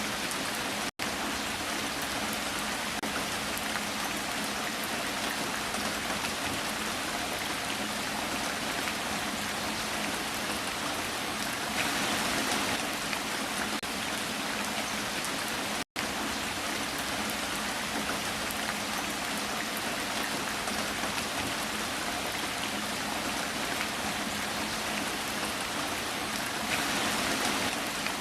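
Rain falling steadily as an even hiss of many drops, with slight swells in intensity about twelve seconds in and near the end. It cuts out to silence for a split second twice, about a second in and about sixteen seconds in.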